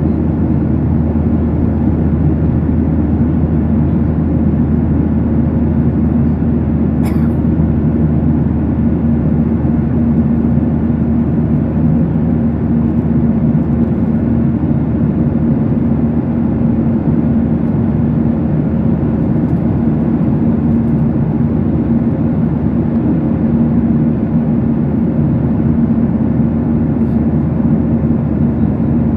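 Steady drone of an airliner in flight heard from inside the passenger cabin: jet engines and rushing air with a low, even hum, and a brief click about seven seconds in.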